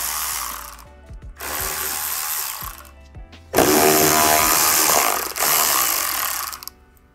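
Milwaukee M12 cordless electric ratchet spinning out the skid plate's bolts. It runs three times; the third run starts about three and a half seconds in and is the longest and loudest.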